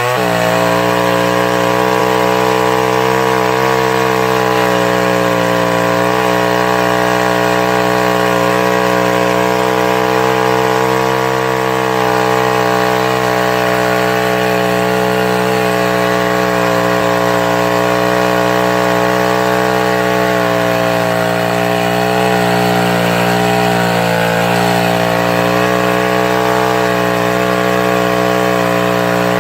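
Old two-stroke gas chainsaw running steadily at high revs while cutting wood, its pitch dipping slightly now and then. The owner says its carburetor is acting up and it is still not running its best.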